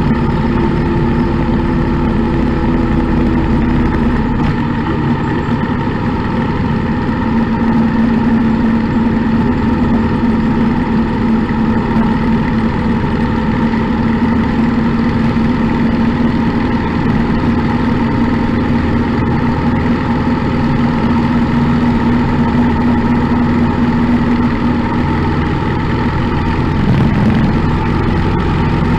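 Motorcycle engine running steadily at cruising speed, heard from on the bike over wind and road noise. The engine note holds one pitch for most of the time and shifts briefly near the end.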